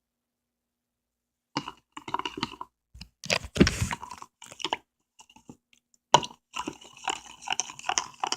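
Irregular crunchy clicks and scrapes of things being handled, likely a spoon and containers on a table, starting after about a second and a half of silence.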